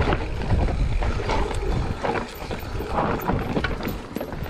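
Propain Tyee full-suspension mountain bike riding a dry, leaf-covered dirt singletrack: tyres rolling over dirt and leaves, with irregular rattles and knocks from the bike over roots and stones. Heavy wind noise on the camera microphone runs under it.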